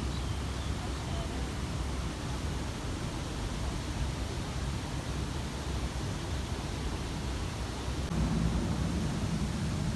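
Steady rush of falling water from an artificial waterfall, an even noisy wash with no breaks. About eight seconds in, a low rumble comes up louder under it.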